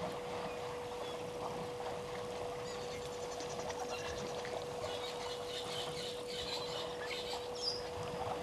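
Small birds chirping and trilling over a steady low hum and a faint rushing background, thicker from a few seconds in, with one brief high whistle near the end.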